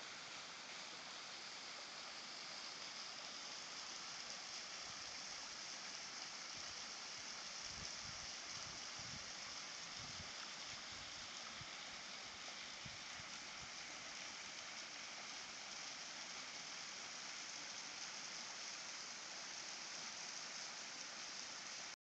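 Small waterfall pouring and dripping over a rock ledge hung with icicles: a steady, faint splashing hiss of water. A few low bumps come between about eight and thirteen seconds in.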